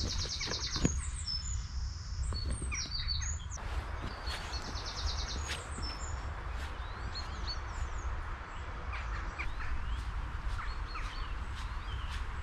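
Songbirds singing: a rapid trill of high notes at the start and another about five seconds in, with scattered short chirps, over a steady low rumble.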